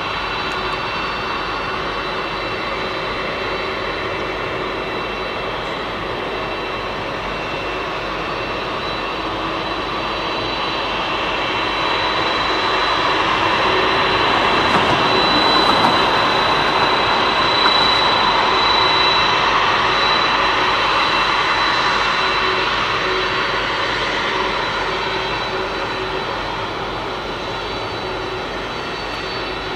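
Boeing 767-300 jet engines running at high power, a steady rushing noise with a high whine over it. It swells to its loudest about halfway through, then slowly fades.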